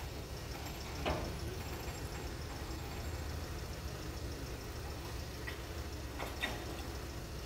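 Steady low rumble of street ambience, with two brief sharp sounds, one about a second in and one near the end.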